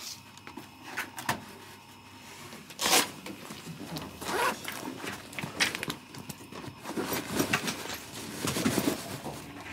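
Two sharp clicks about a second in, from effect pedal footswitches being pressed, then rustling handling noise and the rasp of a zipper as a soft guitar case is opened and the guitar is lifted out.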